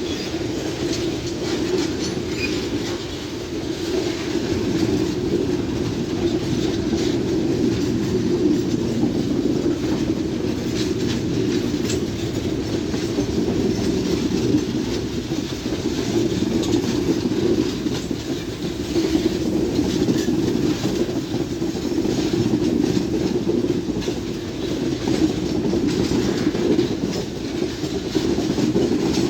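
Freight train cars rolling past at steady speed: a continuous wheel-on-rail rumble with clicks from the wheels crossing rail joints.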